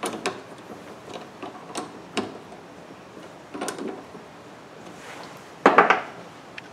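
Keyed drill press chuck being tightened on a twist drill bit by hand: scattered sharp metal clicks and knocks, then a louder clatter near the end.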